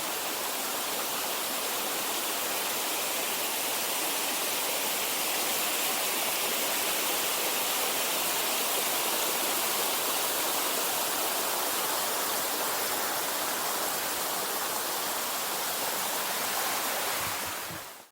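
Styx Branch, a mountain creek, rushing steadily over rocks at a footlog crossing; the sound fades out near the end.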